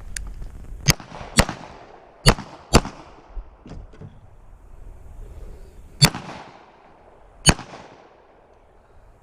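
Six pistol shots with a short echo after each: two quick pairs about half a second apart in the first three seconds, then two single shots about a second and a half apart a little past the middle.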